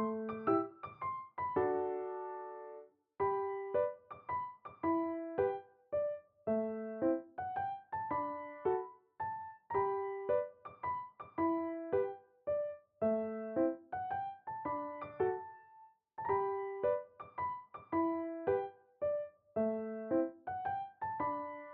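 Background piano music: a gentle melody of single struck notes in short repeating phrases, briefly pausing about three seconds in and again near sixteen seconds.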